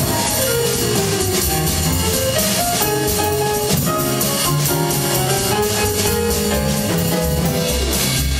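A live jazz combo playing: upright bass stepping through low notes under a steady cymbal beat on a drum kit, with a melody line moving above.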